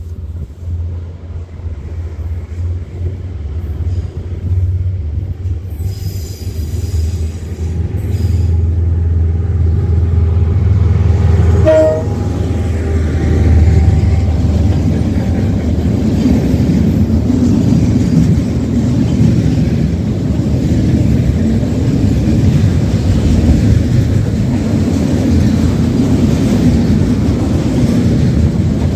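Container freight train approaching and passing close by. A low rumble builds over the first ten seconds or so as it nears, then the steady rolling rumble and clatter of loaded container wagons carries on as they go past.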